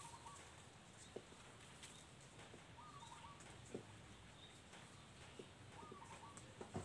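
Near silence of rural outdoor ambience, with a faint distant bird call repeated about every three seconds: a short rising note followed by a few stepping-down notes.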